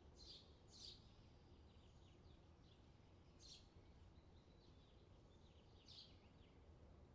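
Faint outdoor ambience: birds chirping, with four short, high, downward-sweeping chirps and quieter twittering between them, over a steady low rumble.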